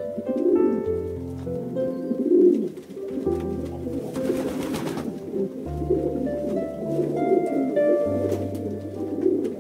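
Pigeons cooing, a low call repeated every second or so, over background music with sustained notes.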